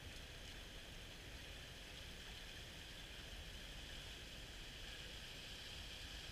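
Steady rush of river water spilling over a small concrete weir and running through the riffle below it.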